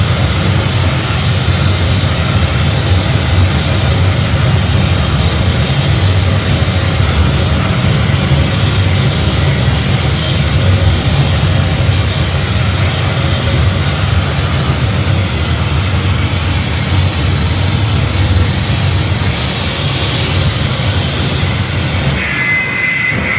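Loud performance soundtrack played over a club sound system: a dense, steady rumbling drone with heavy bass. A thin high squealing tone comes in near the end.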